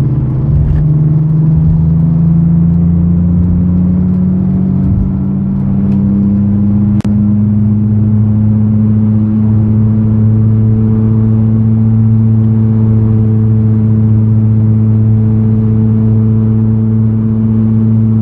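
Humming drone of a worn wheel bearing in a moving car. The drone rises slowly in pitch over the first several seconds, then holds steady. A single sharp click comes about seven seconds in.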